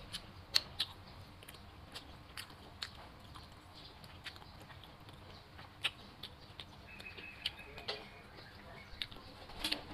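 Mouth sounds of eating soup: chewing and lip smacks heard as scattered sharp clicks, with a metal spoon scooping in a ceramic bowl.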